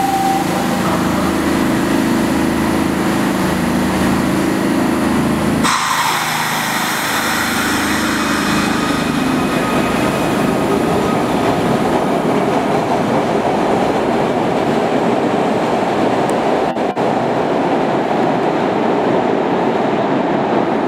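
SEPTA subway train running through an underground station. At first a steady low hum, then about six seconds in the sound switches suddenly to a broad rumble of wheels on rail that carries on as the cars pass and head into the tunnel.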